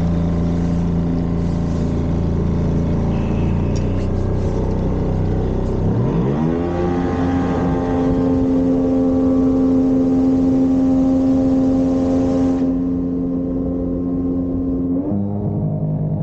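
A small motorboat's engine running under way. About six seconds in it is throttled up, the pitch rising to a higher steady note, and near the end it is eased back and the pitch falls.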